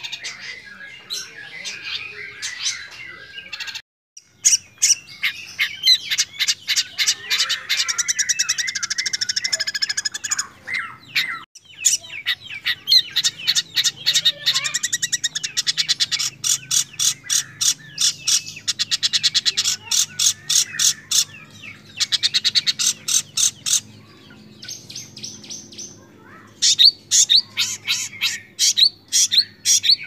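Young long-tailed shrike (cendet) singing a long, fast stream of varied chattering notes and rapid repeated trills, the mimicked song material of other birds that keepers prize in a cendet. There are short breaks about 4 and 11 seconds in.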